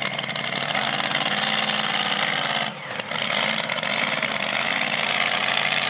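Modified pull truck's engine revving hard under load, its pitch rising and falling, with a short dip in level about three seconds in.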